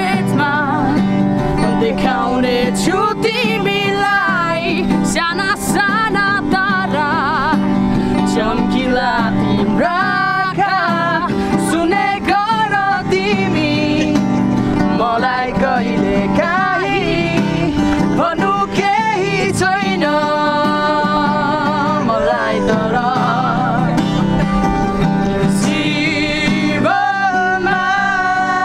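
People singing a song together to acoustic guitar accompaniment.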